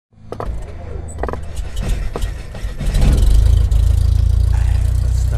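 Cinematic logo-intro sound effect: a few sharp hits over a low rumble, which swells about three seconds in to a loud, steady deep drone.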